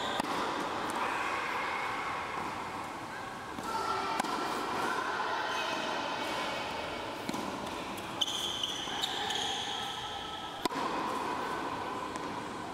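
Tennis balls struck by a racket and bouncing on an indoor hard court: a sharp pop every few seconds, echoing in the large hall, over indistinct voices.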